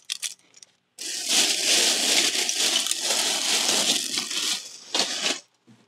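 A clear plastic bag crinkling and rustling for about three and a half seconds as a bundle of screwdrivers is pushed into it, with the metal shafts clinking. A short extra rustle comes about five seconds in.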